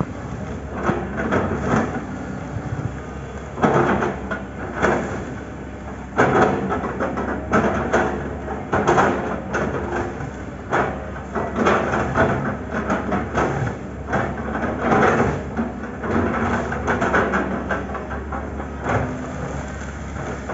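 Excavator engine running steadily while its chipping attachment chops an oil palm trunk, with repeated irregular cracking and crunching of the wood.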